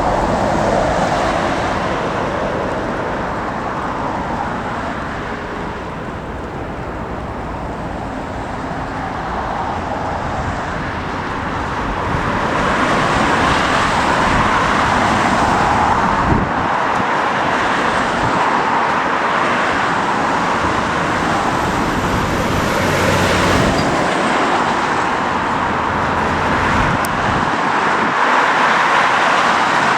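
Steady rushing noise of wind and distant traffic, swelling louder about twelve seconds in.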